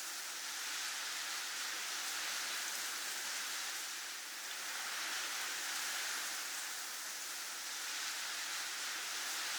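Snowfall ambience sound effect: a steady, soft hiss of falling precipitation, with no single drops or knocks standing out, swelling and easing gently every few seconds.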